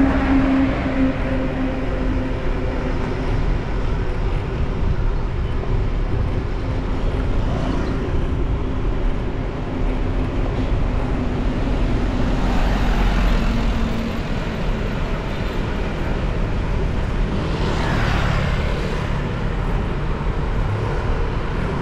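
Motorcycle ride through city street traffic: the bike's engine runs steadily under a deep, continuous rumble, and the noise of surrounding motorbikes and cars swells a little past halfway and again near the end.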